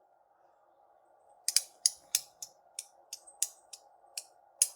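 CooYoo Superconductor haptic coin being clicked by hand: after about a second and a half of quiet, a run of sharp, light clicks, roughly three a second and unevenly spaced.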